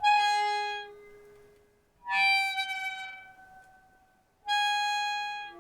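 Contact-microphone recording of three ringing, bell-like tones, each starting sharply and fading away over a second or two; the second is pitched higher than the other two.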